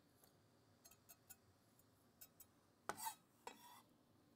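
Near silence, broken by a few faint light clicks and a short rustling noise about three seconds in, the small sounds of food and utensils being handled on a counter.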